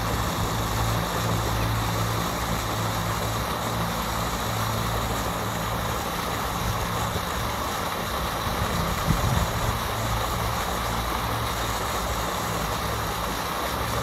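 Floating pond fountain spraying and splashing steadily back into the water, over a steady low mechanical hum. A brief low thump about nine seconds in.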